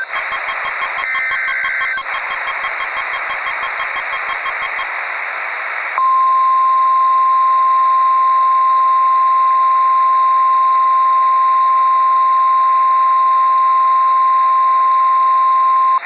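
Emergency Alert System SAME header data bursts, a short two-pitch warble heard twice, with a rapid beeping about five times a second for the first five seconds, over radio hiss. About six seconds in, the steady single-pitch 1050 Hz NOAA Weather Radio warning alarm tone sounds loud for about ten seconds and cuts off, the signal that an emergency message follows.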